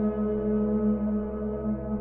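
Generative ambient music from a Eurorack modular synthesizer, its oscillators run through reverb: a low drone that throbs slowly under held, bell-like higher notes.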